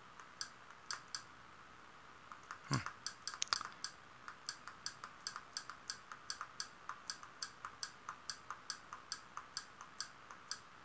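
Computer keyboard key tapped over and over. First come a few scattered presses, then a thump, then a steady run of clicks about three a second until shortly before the end.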